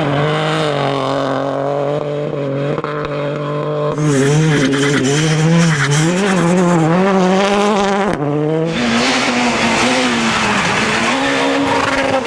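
Rally cars on a gravel stage, engines revving up and down through the gears, with the hiss of loose gravel thrown up by the tyres. The sound switches abruptly to a different car about four seconds in and again about eight seconds in.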